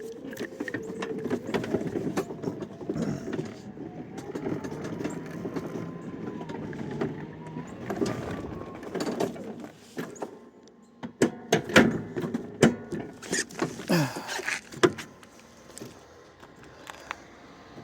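Greenworks 60-volt electric riding mower driving, its motor whine rising in pitch and then falling, until it stops about ten seconds in. Then a run of sharp clicks and knocks.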